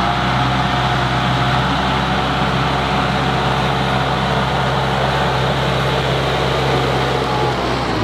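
Tractor's diesel engine running steadily as the tractor, with a front-loader bucket, drives up and passes close by.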